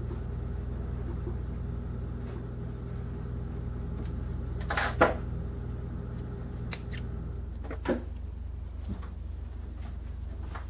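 A few brief rustles and clicks of wool yarn being handled on a woven tapestry and a weft end snipped with small spring thread snips, over a steady low hum; the loudest rustle comes about five seconds in.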